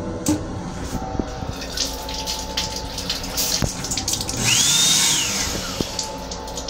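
Sink faucet in a moving M7 railcar's restroom letting out a brief spray of water, about a second long, with a whistle that rises and then falls. The car's steady running rumble and scattered rattling clicks sound underneath.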